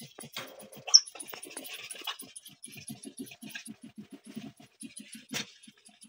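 Patagonian maras grunting softly in a fast run of short low calls, about four or five a second, with a sharp click about a second in and a knock near the end.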